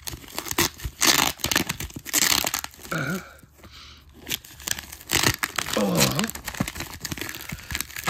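Plastic cling wrap being pulled, stretched and torn off a cardboard shoebox, crinkling in irregular loud bursts with a couple of short squeaks.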